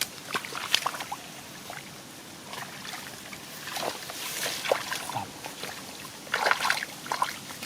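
Shallow water in a flooded rice field splashing and sloshing as someone wades and gropes for fish by hand, in several short clusters of splashes.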